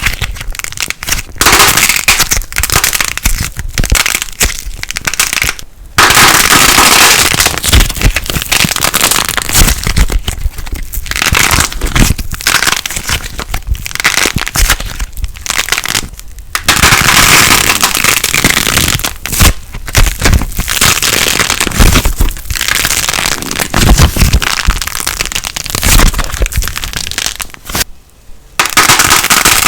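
Light plasticine being squeezed and pressed by hand, giving dense crackling and popping. It comes in spells, with short pauses about six seconds in, near the middle, and just before the end.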